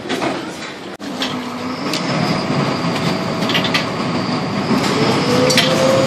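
Vaporetto waterbus's diesel engine running while the boat manoeuvres at a landing stage, the noise building up, with a whine rising in pitch in the last second or so. A few short metallic clanks, one about five and a half seconds in.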